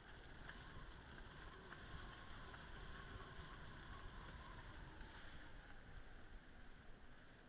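Faint storm wind gusting over rough water around a yacht, a steady rushing hiss with a low rumble that swells slightly during the gust.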